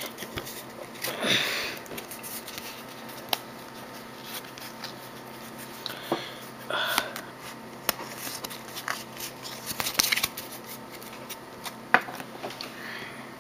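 Pokémon trading cards being handled by hand: rustles of the cards sliding and fanning, with small taps and flicks. There are louder rustles about a second in and again around six to seven seconds.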